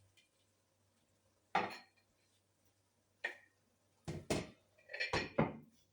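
Pots and cooking utensils clanking and clinking on the stove: a single clank about a second and a half in, another a little after three seconds, then a quick run of clanks near the end.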